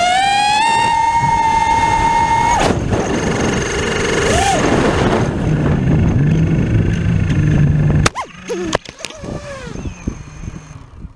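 Quadcopter's brushless motors whining, rising in pitch and then holding steady, until the whine cuts off suddenly about two and a half seconds in as an electronic speed controller (ESC) burns out. A rushing noise follows as the quad falls, then a sharp impact about eight seconds in as it hits the grass, followed by quieter clicks.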